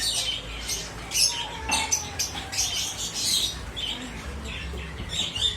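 Pet lovebird chirping and squawking in short, sharp, high calls, repeated many times in quick irregular succession.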